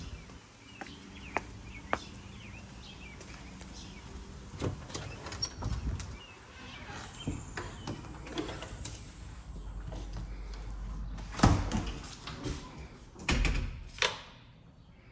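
A house door being opened and shut, with footsteps and scattered knocks and clicks as someone walks through. The loudest knocks come about two thirds of the way in and again near the end.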